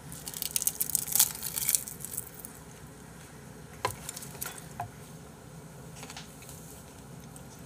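Close-miked chewing of a large mouthful of raw beef, a dense run of wet crackling mouth sounds for about the first two seconds. A few sharp clicks follow near the middle.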